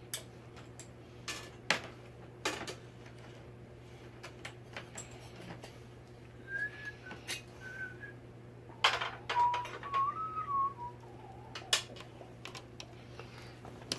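A person whistling a few short wavering notes, twice, while small metal parts and screws click and clatter irregularly, over a steady low hum.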